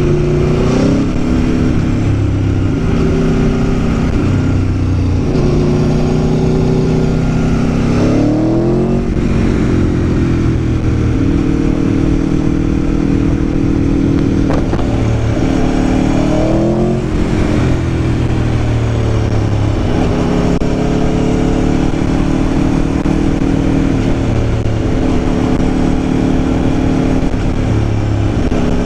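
Aprilia Tuono V4 1100's V4 engine pulling under way on the road. Its pitch rises and falls several times as the throttle opens and eases.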